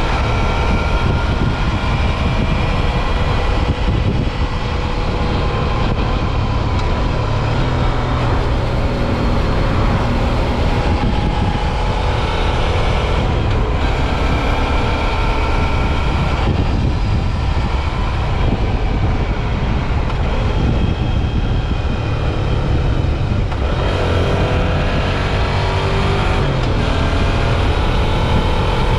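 Suzuki V-Strom 650 XT's V-twin engine running under way on the road, its pitch rising and falling with throttle and gear changes and climbing again near the end, over a steady low rush of wind and road noise.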